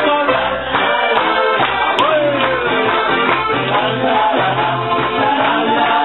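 Live Alpine folk (volkstümliche) band music: an accordion and a guitar playing with singing voices, one voice gliding down in pitch about two seconds in.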